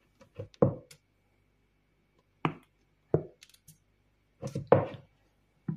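A few separate knocks and clatters: a plastic jug set down on a wooden cutting board and fruit chunks tipped from a plastic bowl into it, the loudest cluster near the end.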